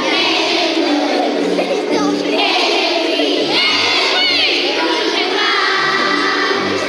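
A class of young children singing loudly together in French over backing music, many high voices at once.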